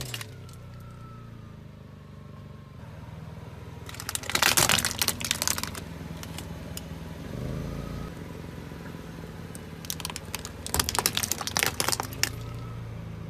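Car tyre rolling over a hollow plastic toy crocodile, the plastic cracking and snapping apart in two loud spells, about four seconds in and again about ten seconds in. The car's engine runs low and steady underneath.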